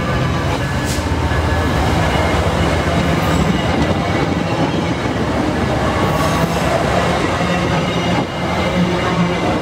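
VIA Rail LRC passenger coaches rolling past close by: a loud, steady rumble of steel wheels on the rails, with a couple of sharp clacks over rail joints.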